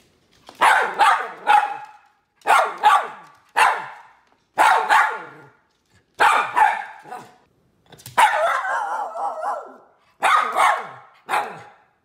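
Poodle barking repeatedly in quick pairs and triplets, with a longer, wavering drawn-out bark about eight seconds in.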